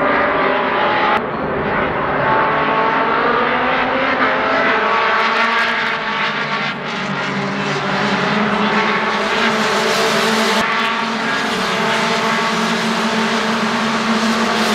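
A pack of race cars running past at speed, several engines sounding at once, their pitches rising and falling as they accelerate and lift through the corners. The sound changes abruptly about a second in.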